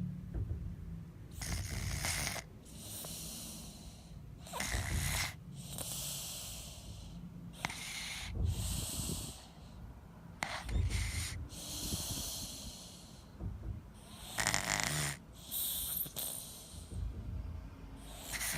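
A 10-month-old baby snoring in deep sleep: a rough snore on each breath followed by a long airy breath out, repeating about every three seconds.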